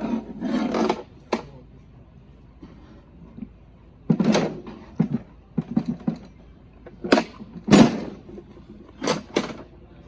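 Irregular knocks and clanks of metal tools and engine parts being handled, about nine separate strikes with uneven gaps, some giving a short ring.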